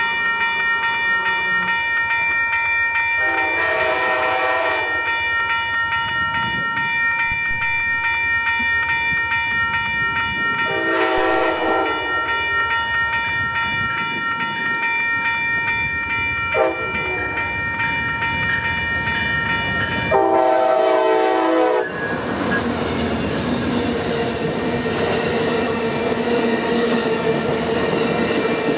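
A railroad crossing bell rings steadily while an Amtrak ALC-42 Charger locomotive sounds its horn for the crossing in the long, long, short, long pattern. The last long blast ends about 22 seconds in, and the train then rumbles past close by with wheel clatter from its cars.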